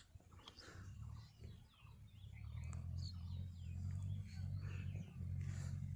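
Small birds chirping faintly over a low steady rumble that grows louder about two and a half seconds in.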